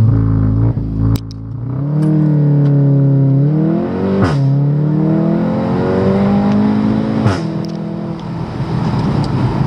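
Heard from inside the cabin: a VW/Audi turbocharged 2.0-litre four-cylinder with an IPE aftermarket exhaust, accelerating through the gears. The engine note climbs, then drops at upshifts about a second in, about four seconds in and about seven seconds in, with a sharp crack from the exhaust at each shift.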